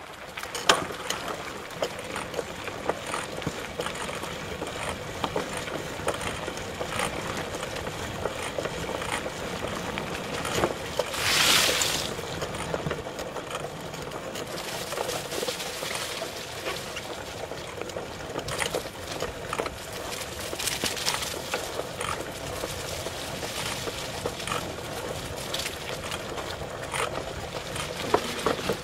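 Outdoor field recording: a steady rushing hiss with scattered crackles and clicks, and a louder rush about eleven seconds in.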